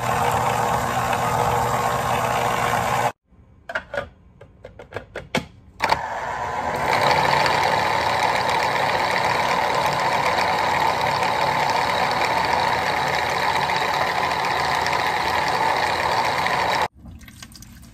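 Cuisinart electric citrus juicer's motor spinning its reamer with a steady whir, with the lid pressed down to squeeze out the juice left in the fruit. It stops abruptly about three seconds in, a few clicks and knocks follow, then it runs again from about six seconds and cuts off abruptly near the end.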